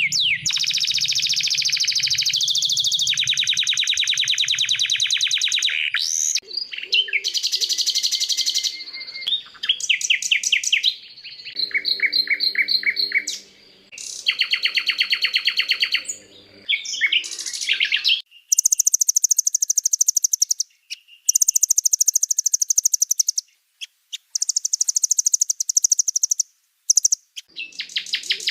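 Recorded songbird songs spliced one after another: fast, high trills and rapidly repeated chattering notes, each stretch cutting in and out abruptly, with a lower, buzzier phrase near the middle. It is a bird-song mix of the kind played to train caged songbirds.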